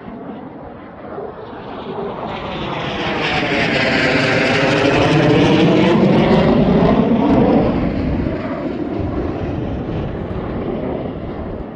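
Blue Angels aircraft making a low pass overhead: the engine noise builds for a few seconds, is loudest in the middle, then fades away as it passes.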